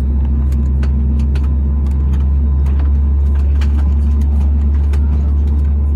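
Cabin noise of an Airbus A320neo taxiing: the steady low hum of its Pratt & Whitney geared turbofan engines at taxi power, with scattered light clicks.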